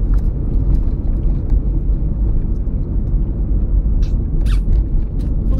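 Steady low rumble of road and tyre noise inside a 2007 Toyota Prius driving along a town street, with a brief high chirp about four seconds in.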